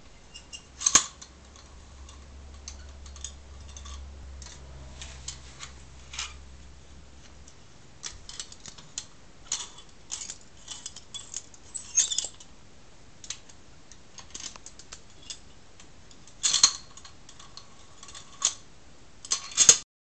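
Antique mechanical corkscrew with a brass barrel and a threaded steel shaft being worked by hand: light metallic clicks and scrapes as the handle is turned and the parts are handled, with a few louder clacks near the start and near the end.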